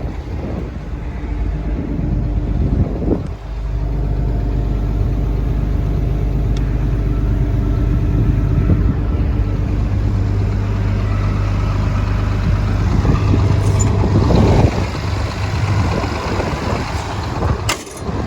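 Komatsu PC300LC-8 excavator's six-cylinder diesel engine running steadily with an even, healthy-sounding note. A sharp click comes near the end.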